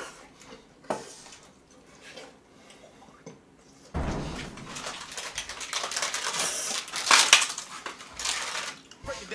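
Eating and handling noise: a few light clicks of a plastic spoon against a paper noodle cup, then from about halfway several seconds of loud rustling and knocking, loudest a couple of seconds before the end.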